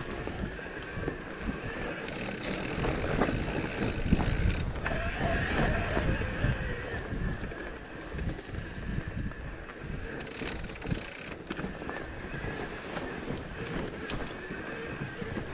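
Mountain bike riding over a rough trail: wind buffeting the microphone over the rumble and rattle of the tyres and frame, with a few sharp knocks.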